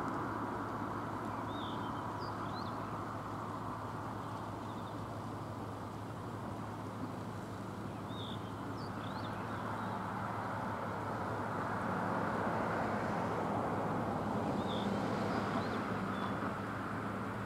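Steady outdoor background noise with a low hum under it. Birds chirp briefly three times, several seconds apart.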